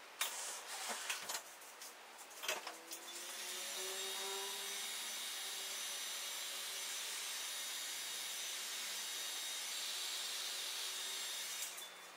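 Handheld electric air blower being handled with a few knocks, then switched on, its motor whine rising as it spins up and then running steadily while it blows across wet epoxy resin to swirl it, before cutting off near the end.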